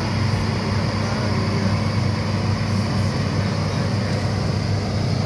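Diesel engine of a Hitachi ZAXIS 210F excavator running steadily with a low, even hum while it works its boom.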